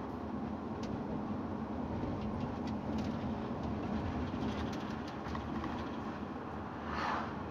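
Steady engine and road noise inside the cab of a heavy Mercedes-Benz vehicle on the move. Near the end there is a brief whoosh as an oncoming car passes.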